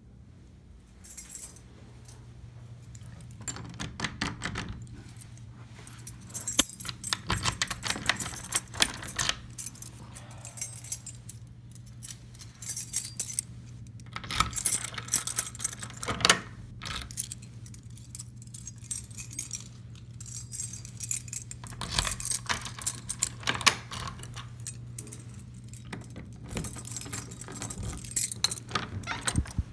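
A ring of keys jangling as a key is worked into and turned in the brass cylinders of jimmy-proof rim deadlocks and a knob lock. The jingling comes in repeated clusters of sharp metallic clicks, over a steady low hum.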